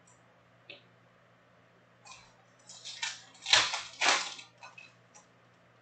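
A silvery foil trading-card pack wrapper being torn open and crinkled by hand, in a run of crackling rustles over about three seconds, loudest a little past the middle.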